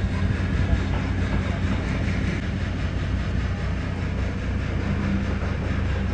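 Superyacht's diesel engines running at low speed while it manoeuvres into its berth: a steady low rumble with a hum.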